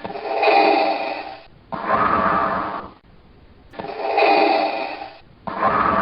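Darth Vader's mechanical respirator breathing, a rasping breath drawn in and pushed out through the mask. Two full in-and-out cycles, each breath lasting about a second and a half with a short pause between.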